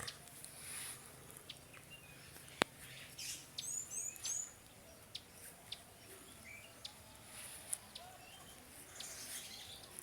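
Birds chirping, including a quick run of short falling chirps about four seconds in, with a few scattered clicks. One sharp click about two and a half seconds in is the loudest sound.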